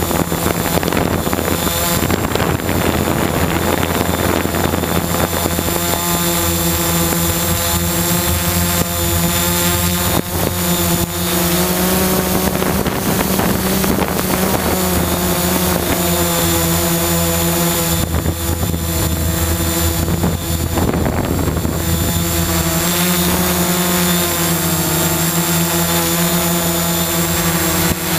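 A hexacopter's electric motors and propellers humming close to the microphone: several steady pitches, with a thin high whine above them, that shift up and down together as the throttle changes.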